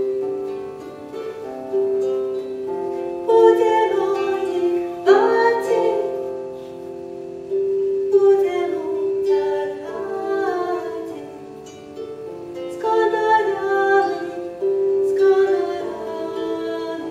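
Celtic harp played, its plucked notes and chords ringing on, with a woman singing along.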